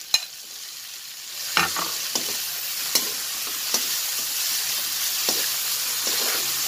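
Diced tomatoes, onion and garlic sizzling in hot oil in a wok while a metal spoon stirs them, scraping and tapping the pan about once a second. A sharp clink sounds near the start, and the sizzle grows louder about a second and a half in.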